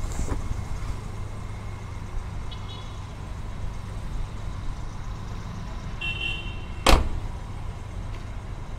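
Maruti Suzuki Omni van's front door shut with a single loud slam about seven seconds in, over the steady low rumble of the van's 796 cc three-cylinder petrol engine idling.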